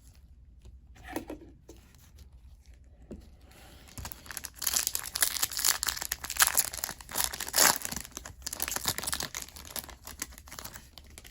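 Foil wrapper of a Bowman Chrome trading-card pack being torn open and crinkled by hand. A few light handling sounds come first, then about six seconds of steady crackling and tearing.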